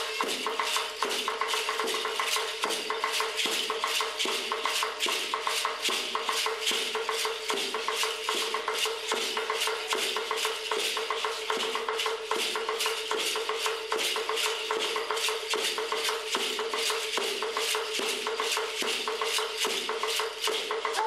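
Rattles shaken in a fast, even beat of several strokes a second to accompany Aztec-style dancing, over a steady held tone.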